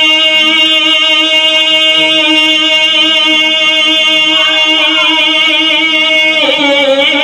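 A man's chanting voice holding one long, slightly wavering note of a naat verse. Near the end it slides down and bends into a new phrase.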